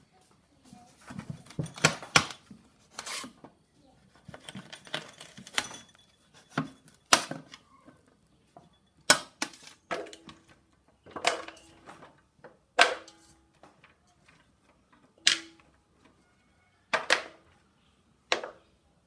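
Kitchen utensils knocking and clinking at an irregular pace, about one sharp knock every second or two, some in quick pairs and some leaving a brief ring like a pot or dish.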